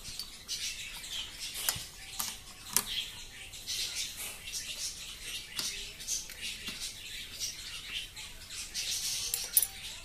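CPU cooler's plastic push-pin fasteners being pressed and worked with a screwdriver against the motherboard: scraping and creaking with a few sharp clicks, the pins going in tight.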